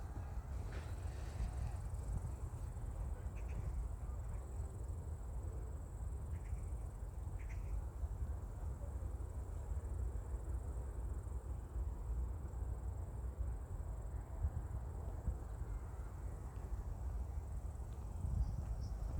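Insects trilling in one steady, high, thin tone, over a constant low rumble, with a few faint short chirps.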